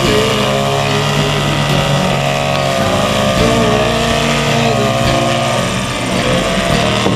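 An engine running steadily, its pitch wavering up and down slightly.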